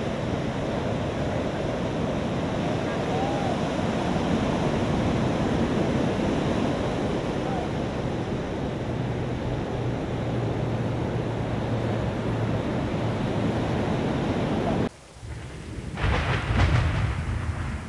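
Steady rush of ocean surf and wind on the microphone. About fifteen seconds in it cuts off abruptly, and a thunderstorm comes in: a thunder rumble under the hiss of heavy rain.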